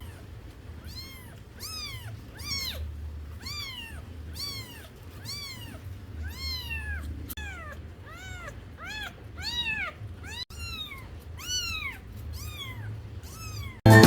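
A cat meowing over and over: short high mews, each rising then falling in pitch, about two a second, over a low steady hum.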